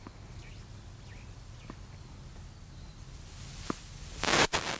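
A few faint, sharp knocks of tennis balls bouncing and being tapped with rackets, spaced a second or two apart, over a low steady outdoor background. Near the end comes a short, loud rush of noise with a sharp click.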